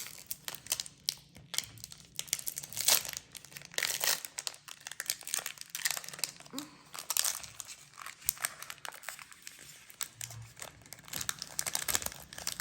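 Foil booster-pack wrappers of Pokémon trading cards being handled and torn open: irregular crinkling and crackling of the foil.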